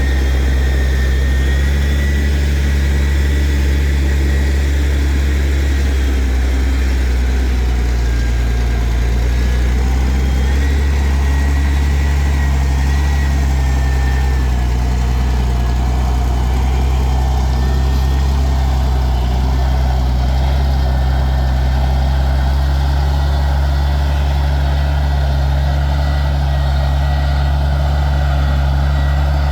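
Diesel engine of heavy earthmoving machinery running steadily with a deep drone, and a thin high whine above it that wavers slightly in pitch.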